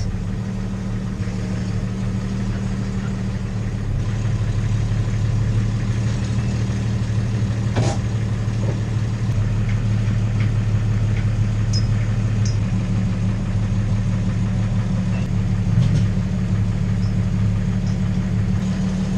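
Engine of a 1993 Jeep Grand Cherokee running steadily at low revs, with a sharp click about eight seconds in.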